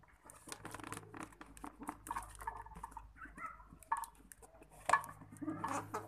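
Plastic-wrapped cardboard parcel being torn open and handled: an irregular run of rustles, rips and taps over a steady low hum.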